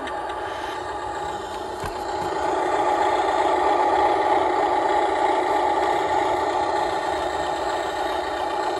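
Radio-controlled dump truck running steadily, growing louder about two seconds in.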